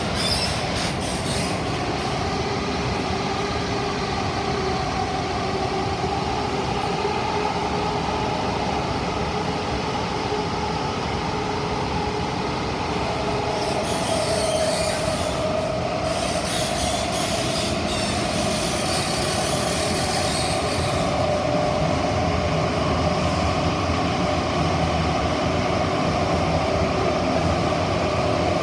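Inside an SMRT CT251 metro train running between stations: a steady rumble of wheels on rail with a humming whine. About halfway the whine grows a little louder, and several seconds of high hissing come and go.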